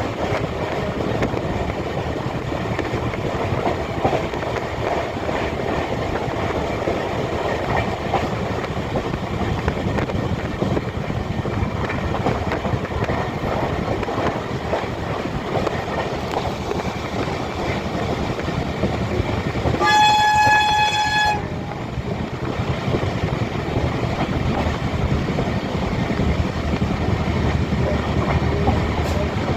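Passenger train running on the rails, heard from aboard, a steady rumble and clatter of wheels on track. About two-thirds of the way through, a train horn sounds once, a single steady note lasting about a second and a half.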